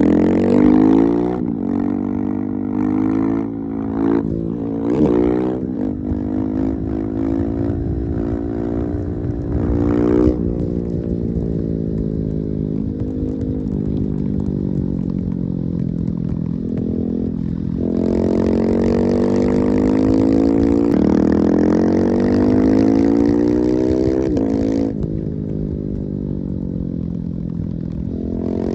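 Husqvarna 701 single-cylinder four-stroke motorcycle engine ridden at full power. Its pitch climbs under acceleration and drops sharply at each gear change: several quick shifts early on, then longer pulls with shifts about ten seconds in and again near the end.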